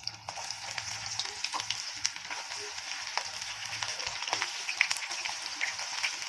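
Breadcrumb-coated cauliflower pieces frying in hot oil: a steady sizzle with many small crackles.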